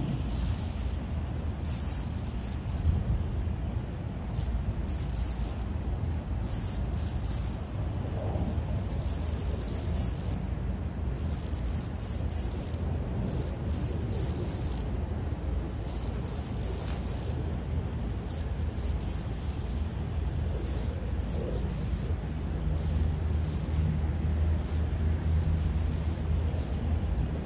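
Spinning reel rasping in repeated bursts of about a second each while a hooked fish is being played, over a steady low rumble.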